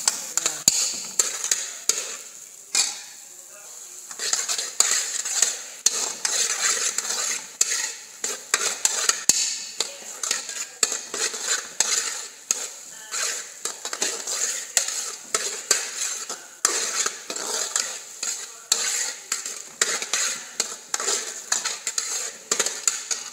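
Diced tomato and onion sizzling as they are sautéed in oil in a metal pot, with a metal spoon scraping and clinking against the pot in repeated stirring strokes. The stirring pauses briefly about three seconds in.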